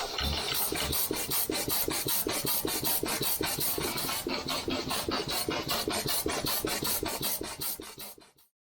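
Small steam machinery running on low-pressure steam, a quick, even beat of strokes and exhaust puffs about five or six a second, fading out near the end.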